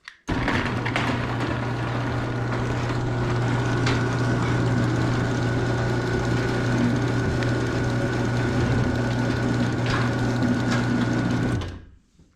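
A motor running steadily with a strong low hum. It starts suddenly and cuts out near the end.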